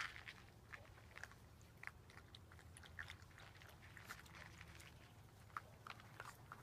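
Faint, irregular clicks and rustles of Miniature Australian Shepherd puppies wrestling and mouthing each other on grass.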